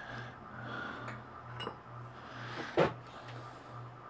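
Light metallic clicks and clinks of Allen keys being handled, a few separate taps with the sharpest near the end, over a steady low hum.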